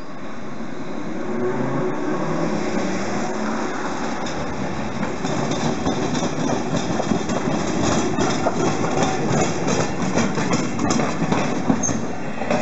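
Hankai Tramway Mo 351-class tram running over a flat track crossing, its wheels clacking over the gaps in the crossing rails. The clacks come thick and fast from about halfway in.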